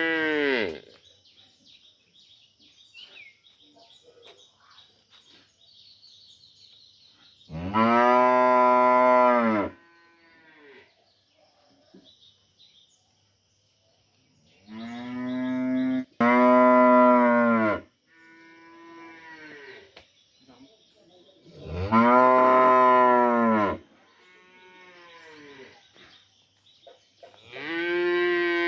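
Cattle mooing: long, loud calls about every six seconds, each rising and then falling in pitch, with fainter moos answering in between. These are the contact calls of cows separated from a herd-mate.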